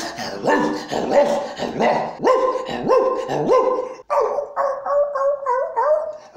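A man's voice imitating a cartoon dog: about seven short yelping barks, each rising and falling in pitch, then from about four seconds in a higher, wavering whine that steps up and down in pitch, done as Dogmatix (Idéfix).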